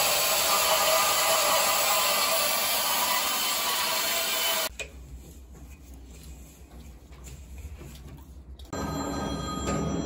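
Portable band saw cutting through black steel pipe, running steadily, then cutting off abruptly about halfway through; a much quieter low hum follows.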